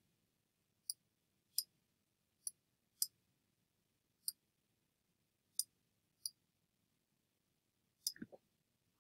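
Faint computer mouse button clicks, about eight single clicks at uneven gaps of roughly a second.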